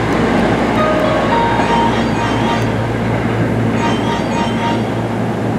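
Hankyu Kyoto Line electric train running alongside the station platform: a loud, steady rumble of wheels on rail with several steady whining tones that fade in and out.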